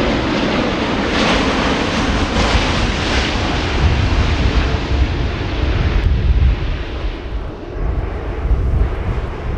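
Airbus A380 airliner's four jet engines on landing approach, a loud steady jet rumble and hiss as the aircraft passes close by. The hissing upper part is strongest a second or two in and fades after about six seconds as the aircraft moves away toward the runway, leaving mainly a low rumble.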